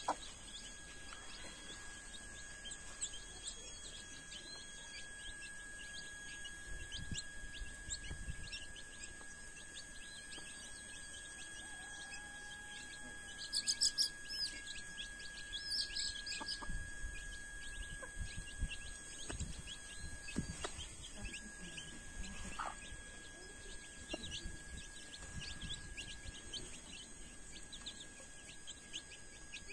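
Young chicks peeping in many short high chirps as they feed, with a hen clucking among them; a burst of louder peeps comes about halfway through. A faint steady high tone runs underneath.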